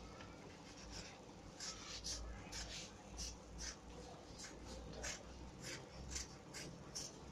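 A utility knife (cutter) blade slicing through folded paper along the crease, in a run of short repeated scraping strokes, about two to three a second.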